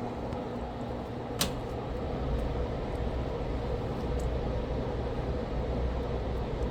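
Hot air rework station blowing steadily on the solder joints of a laptop's USB-C charging port, held in place to melt the solder. A single sharp click about one and a half seconds in.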